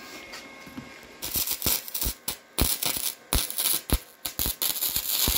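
Wire-feed (MIG) welder arc crackling and sputtering in short stop-start runs, beginning about a second in, as a test weld is laid on scrap steel tube with 0.9 mm wire while the welder's settings are tuned.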